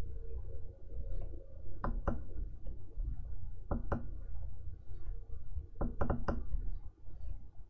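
Stylus tip tapping on the glass screen of an XP-Pen Artist 15.6 Pro pen display: short sharp taps, two pairs and then three in quick succession, over a steady low hum.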